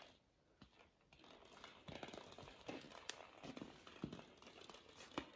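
Near silence with a few faint, scattered taps and rustles: a Pomeranian puppy's paws on a tile floor and a plastic toy ball. There are two sharper ticks, one a little after three seconds and one near the end.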